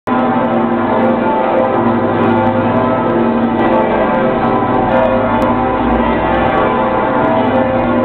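Cologne Cathedral's bells ringing in a full peal, many large bells sounding together in a dense, unbroken wash of overlapping tones.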